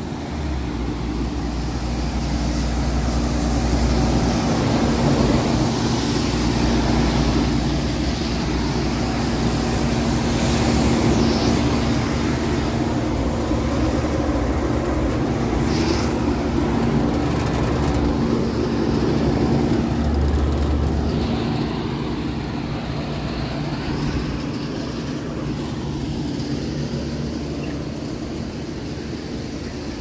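Old General Electric 4-ton central air conditioner condenser unit, dated to about 1971, running: a steady compressor hum under the rushing of its condenser fan. Low rumbles of wind on the microphone come and go.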